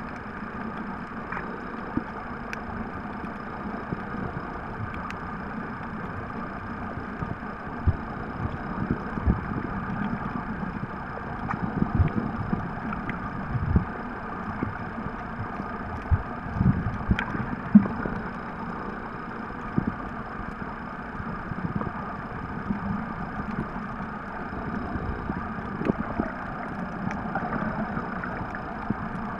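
Muffled underwater noise from a submerged camera: a steady rumbling hiss, with irregular low thumps from water movement and handling, more of them in the middle.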